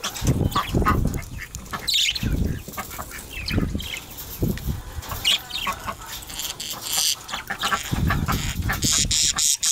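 Budgerigars chirping and chattering in quick, scratchy calls, with repeated low rumbling thuds underneath.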